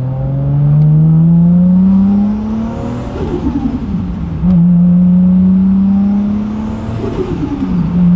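MK4 Toyota Supra's turbocharged 2JZ straight-six pulling away, revs climbing steadily, dropping at a gear change about three seconds in, climbing again and dropping at another shift near the end.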